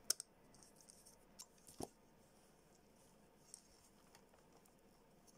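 Mostly near silence, with a few faint clicks in the first two seconds and one more faint tick later: small machine screws and a screwdriver being handled on a Raspberry Pi Zero board and its case.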